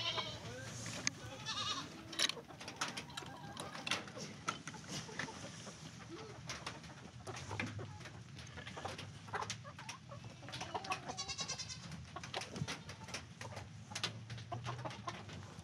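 A flock of chickens moving about their run: scattered clucks and short trilled calls over many small clicks and scratches.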